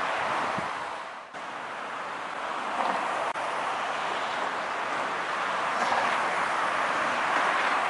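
A train running, heard as a steady rushing noise without a clear engine tone. It dips sharply about a second in and comes straight back, with a short break a little past three seconds.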